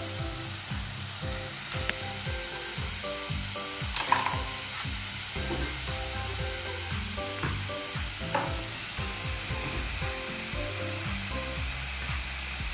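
Frozen shoestring fries sizzling in hot oil in a frying pan, a steady hiss with a few sharp oil pops, the loudest about four seconds in. Background music with bass notes plays underneath.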